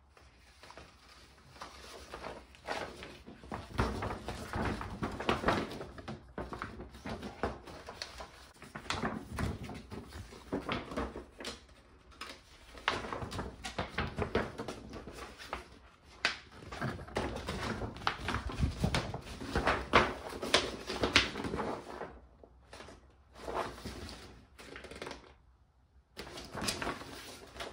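Hands handling album packaging: an irregular stream of rustling, tapping and knocking, with a couple of short pauses near the end.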